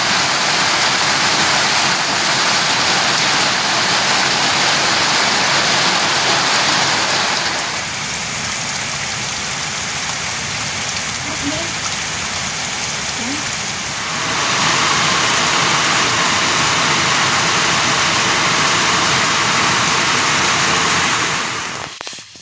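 Heavy rain falling steadily. It drops in level for several seconds in the middle, comes back up, and cuts off suddenly just before the end.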